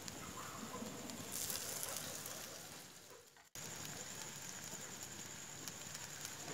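Wood fire crackling under a hot stone slab, with pork frying on the stone and a brief louder hiss of sizzling about a second and a half in. The sound fades out and cuts back in abruptly a little past three seconds.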